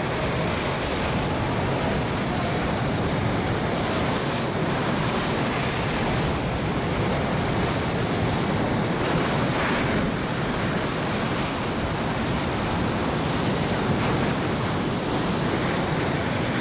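Ocean surf washing onto a beach: a steady, unbroken rush of waves.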